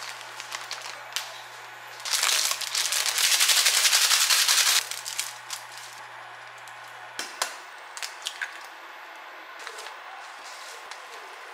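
Plastic ramen packet crinkling loudly for nearly three seconds as it is handled and opened, with scattered smaller clicks and rustles around it. A low steady hum under it stops about seven seconds in.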